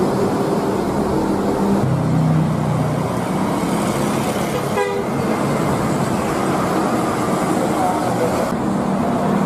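Coach bus horns sounding long, steady musical tones over engine and road noise. A different, lower horn takes over about two seconds in, a brief wavering rising tone comes about halfway, and a higher horn sounds again near the end.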